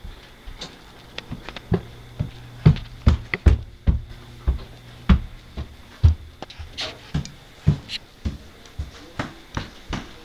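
Irregular knocks and thumps from the plate and camera being handled and from footsteps while walking. A faint steady low hum sits under them for most of the first seven seconds.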